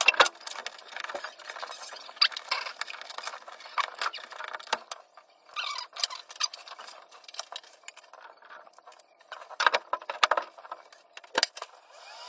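Handling noises from fitting a brass adapter onto a copper pipe stub-out: irregular clicks, taps and brief scraping, with sharper knocks near the start, around ten seconds in and near the end.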